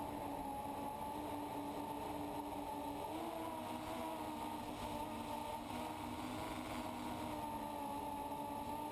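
FPV quadcopter's electric motors and propellers, heard from the GoPro on board, giving a steady whine that shifts a little in pitch with the throttle and bends up briefly about three seconds in, over a rushing hiss of air.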